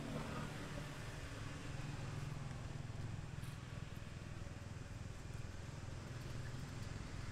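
A steady low engine rumble with no clear changes.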